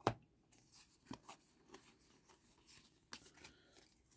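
Pokémon trading cards handled in the hand, cards slid from the front of the stack to the back, with soft scrapes and light clicks of card stock. A sharp click right at the start is the loudest sound, and fainter clicks follow about a second and about three seconds in.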